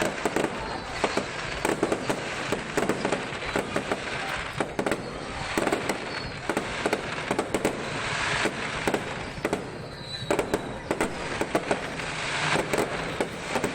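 Aerial fireworks display going off continuously: a rapid, irregular barrage of sharp bangs and crackling over a steady rumble of bursts.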